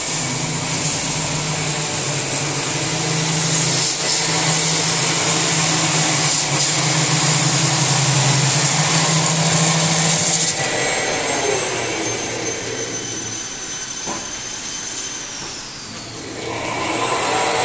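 CNC rotary-table polishing machine running, grinding forged mason blades: a steady abrasive grinding noise over a low hum and a high whine. About ten seconds in the hum drops away and the noise eases to its quietest just before sixteen seconds, a high tone gliding down, then it builds back up.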